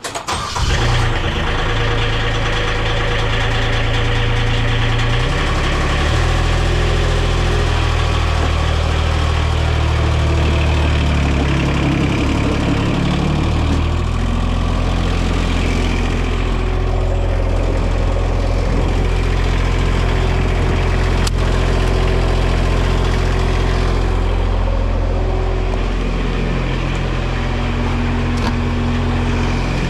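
Diesel engine of a V1000 mini skid steer starting right at the outset and then running steadily, its speed changing a few times. It starts now that the dead-man switch, found to be what was stopping it, is dealt with.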